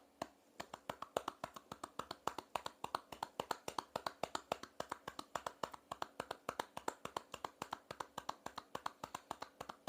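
Rapid, steady patting of loosely cupped hands on the back of a person's chest, both hands, several sharp pats a second. This is chest percussion to loosen phlegm during a cough.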